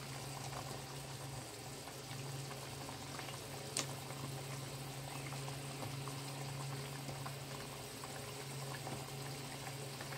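Meat curry gravy boiling hard in a wok: a steady bubbling with small pops over a constant low hum, and one sharp click about four seconds in.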